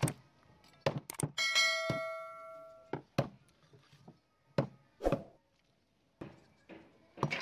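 Sharp, irregular knocks of cooking utensils against cookware. One strike about a second and a half in sets a metal pot or bowl ringing, and the ring fades over about a second and a half.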